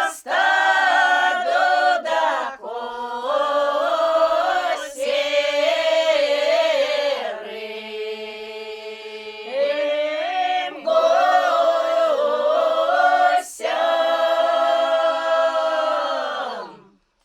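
Unaccompanied ensemble singing a northern Russian Pomor folk song in several voice parts, in long held chords with short breaks between phrases. The final chord slides down and dies away near the end.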